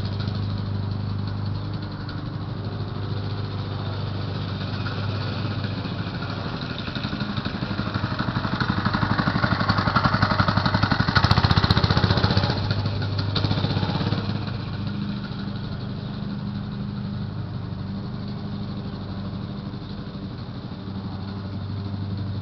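Briggs & Stratton 3 hp single-cylinder four-stroke engine of a 1970s Lil Indian minibike running steadily as the bike is ridden. It grows louder as the bike passes close by around the middle, then drops back as it moves away.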